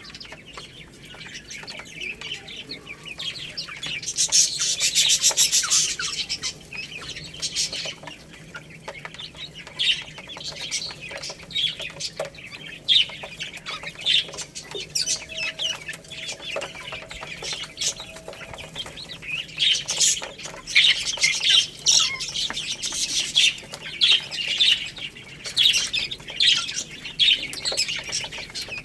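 A brood of baby chicks chirping, many short high peeps over one another, busiest about four seconds in and again in the last third.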